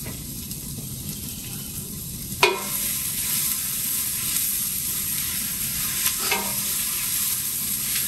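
Food sizzling and frying in a large stainless steel stockpot while a spatula stirs and scrapes it. About two and a half seconds in, the spatula knocks sharply on the pot and it rings; a lighter knock follows near the end, and the sizzle grows stronger after the first knock.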